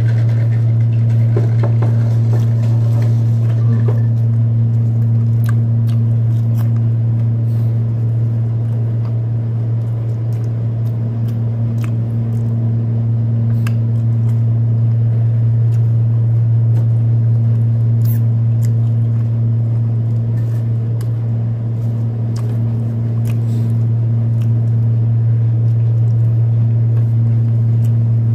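Steady low hum of a window air conditioner running, unchanging throughout. Faint scattered clicks come from eating french fries.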